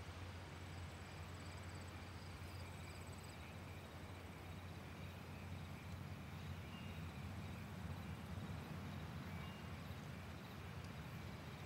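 Faint crickets trilling over a low, steady hum.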